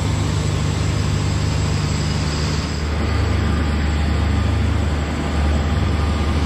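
Steady, loud drone of engines running on an airport apron: a deep hum under a broad hiss, with a thin high whine held throughout.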